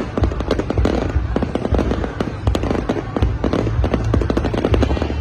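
Aerial fireworks bursting in rapid, dense succession: many overlapping bangs and crackles with a continuous low rumble.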